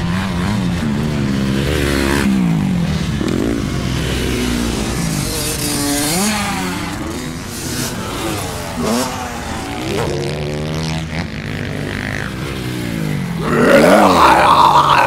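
A person imitating dirt-bike engines with the voice for toy motorcycles, revving up and down in pitch without a break. Near the end comes a louder, rougher burst as a toy bike crashes.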